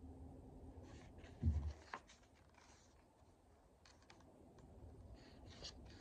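Faint handling of a picture book: a low thump about one and a half seconds in, a sharp click just after, then scattered paper rustling as a page begins to be turned near the end.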